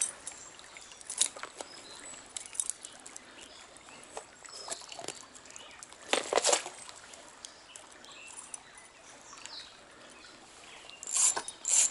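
Stream water trickling, with several short splashes: a stronger one a little after six seconds in and two more close together near the end.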